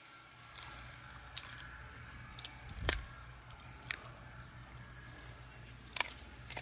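An American bulldog chewing a bully stick, with irregular sharp crunches as she bites down on it. The loudest come about three seconds in and near the end.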